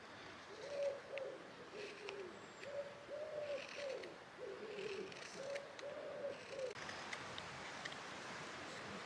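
A pigeon cooing in several repeated phrases of low, even notes, stopping about two seconds before the end, with faint ticks of a carving knife cutting into green wood.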